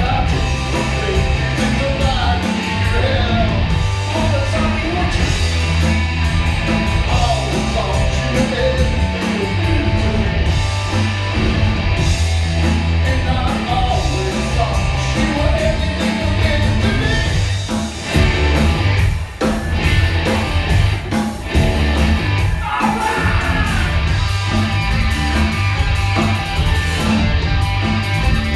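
Rock band playing live: electric guitar, electric bass and drum kit driving a steady beat under a man's lead vocal. About eighteen seconds in the band hits a couple of short stops before carrying on.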